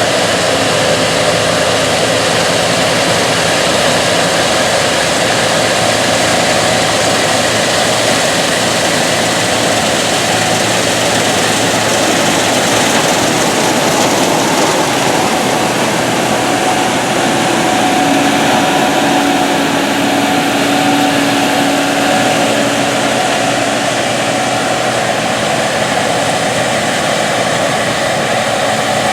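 Gleaner S97 combine running steadily while harvesting soybeans, its 9.8-litre AGCO Power diesel engine and machinery making a continuous, even noise.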